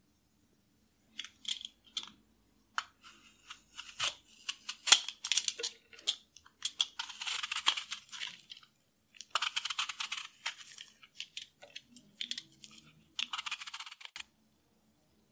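Hand-held peeler scraping the skin off a raw apple, in a series of short rasping strokes with small clicks. The longest strokes come near the middle and just before the end.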